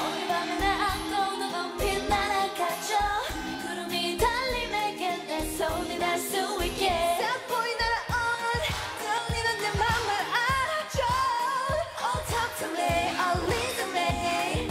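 K-pop girl-group song performed on stage: female voices singing over a pop dance backing track with a steady beat.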